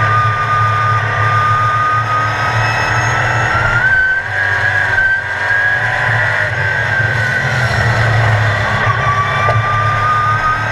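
Sportsman stock car's engine at racing speed, heard from inside the car. The engine note climbs about four seconds in as the car accelerates, falls back around eight seconds in, and starts to climb again near the end.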